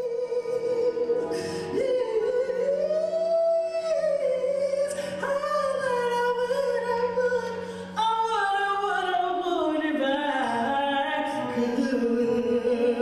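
A woman singing solo into a microphone, holding long notes and sliding up and down between them.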